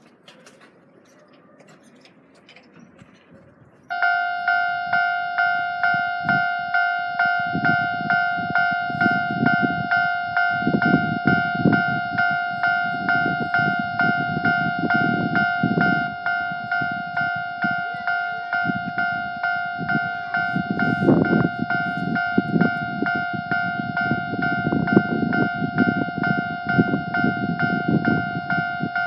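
Japanese railway level-crossing warning bell starts suddenly about four seconds in and rings on in an even, repeating beat of two steady tones. A low train rumble swells and fades under it while it rings.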